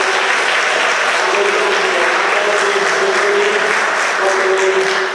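Audience applauding, steady and dense.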